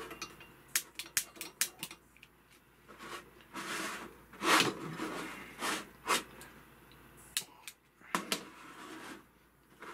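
Repeated sharp clicks of a long-nosed lighter's igniter as two gas candle lanterns are lit, about six quick clicks in the first two seconds and a few more near the end. Between them come several short bursts of hissing noise, the loudest about four and a half seconds in.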